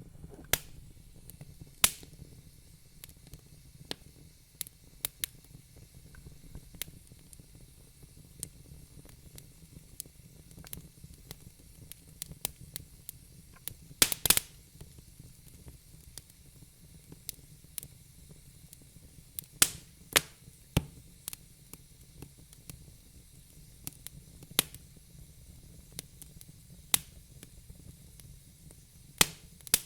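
Wood fire burning in a fireplace: irregular crackles and sharp pops from the burning logs, a louder double pop about halfway through, over a steady low rumble of the flames and a faint hiss.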